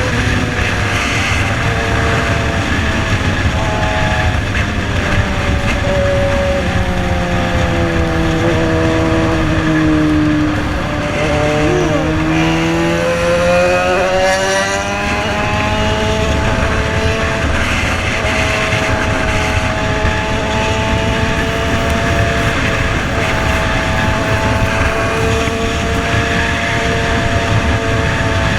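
Yamaha XJ6's 600 cc inline-four running through a custom-made exhaust while riding: the engine note falls for several seconds as the bike slows, climbs sharply again a little before halfway as it accelerates, then holds a steady pitch at cruising revs.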